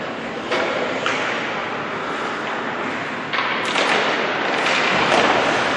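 Ice hockey play: skate blades scraping the ice and a few knocks of sticks and puck, over a steady noisy rink background. It grows louder a little past halfway.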